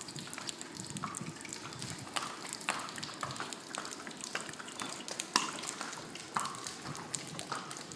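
Horses' hooves clopping on wet stone paving: a ridden horse walking and a carriage horse passing close, giving irregular sharp knocks, the loudest about five seconds in.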